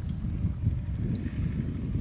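Wind buffeting the microphone: a steady low rumble, with a few faint ticks.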